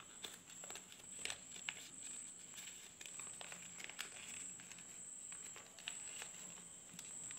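A sheet of A4 paper rustling and crinkling in the hands as it is folded and creased, with scattered sharp little crackles of the paper. A faint steady high-pitched whine runs underneath.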